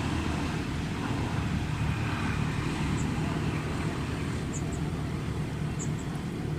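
Steady low rumbling outdoor background noise, with a few faint, very high short chirps in the second half.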